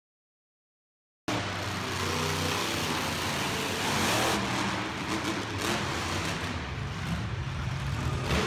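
Silent for about the first second, then monster truck engines running and revving hard, loudest around four seconds in as a truck jumps off a dirt ramp over a row of cars, with a few short thuds.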